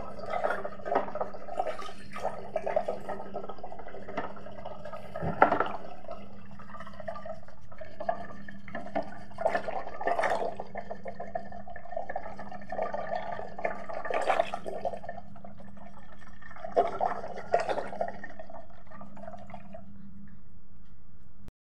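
Curd being churned in a glass jar with a wooden hand churner spun back and forth between the palms, to separate butter from buttermilk: continuous liquid sloshing and churning, with a few sharper knocks. A steady low hum runs underneath, and everything cuts off abruptly just before the end.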